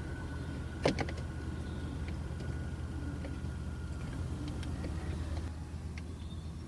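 Plastic dashboard trim and switch parts being handled and fitted: one sharp click about a second in, then a few light ticks, over a steady low hum.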